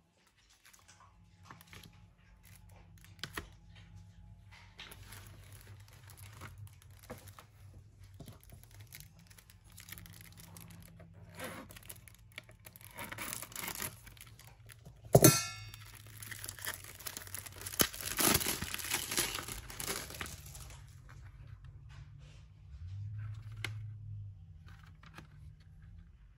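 Clear plastic shrink wrap being torn and peeled off a CD jewel case: irregular crinkling and tearing, with one sharp, loud snap about halfway through.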